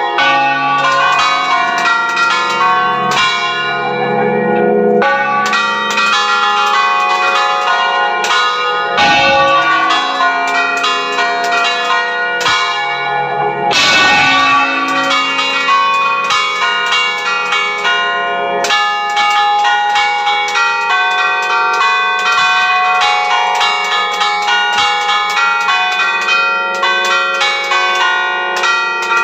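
Several large bronze church bells rung by hand at close range in their tower, struck in a rapid, continuous pattern of overlapping strokes of different pitches, each ringing on under the next. Two dull low thumps come through about nine and fourteen seconds in.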